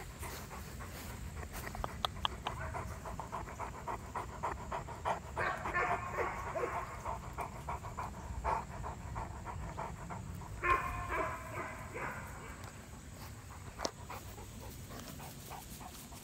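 Cane Corso panting rapidly close to the microphone, with two brief stretches of pitched vocal sound about five and eleven seconds in.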